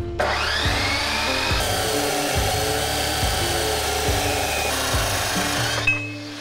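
Craftsman abrasive chop saw spinning up with a rising whine and grinding through a steel angle bar for about six seconds, then cutting off shortly before the end. Background music with a steady beat plays underneath.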